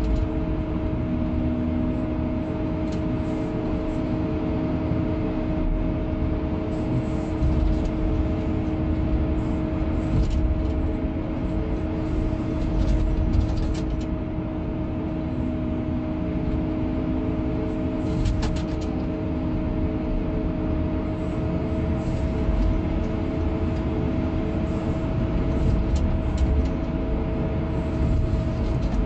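Excavator's diesel engine running steadily as the machine digs soil, heard from the cab, with a constant humming tone over a low rumble and a few faint clicks.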